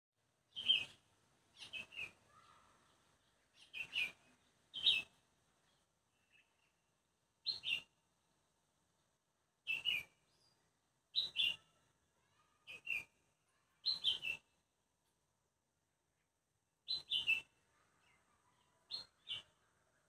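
A bird chirping in short, sharp calls, mostly in quick pairs, repeated every second or two with pauses between.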